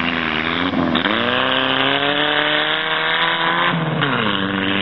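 Autocross car's engine revving hard under acceleration. The pitch dips briefly about a second in, climbs steadily for nearly three seconds, then falls away near the end.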